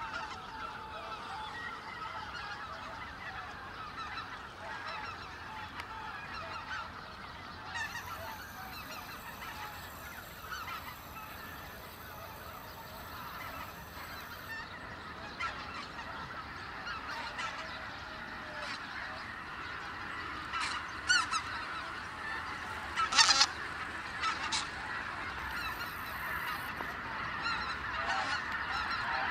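A large flock of wild geese honking together in a dense, continuous clamour as they lift off from their roost at dawn. A few louder sharp sounds stand out about two-thirds of the way through.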